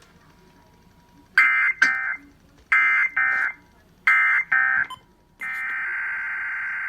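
Emergency Alert System digital header sent three times as short harsh data screeches about a second apart, then after a brief pause the steady EAS attention tone starts, marking the start of a station's monthly test relay.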